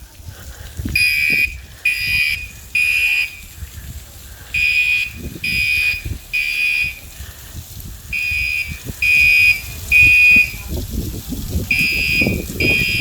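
Building fire alarm sounding the three-beep evacuation pattern: loud, high-pitched beeps in groups of three, about a second apart, with a short pause between groups. A low rumble runs underneath.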